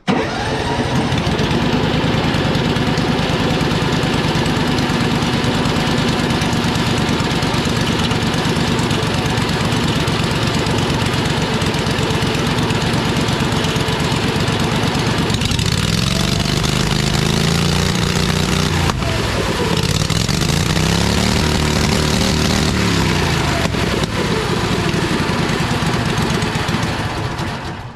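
Homemade amphibious ATV's V-twin engine starts and runs steadily, driving a propeller that churns water in a tank. From about halfway the revs rise and fall several times, and the engine stops near the end. The propeller drive has failed during the run, which the builder first takes for a stripped gearbox; he later finds it popped out of gear.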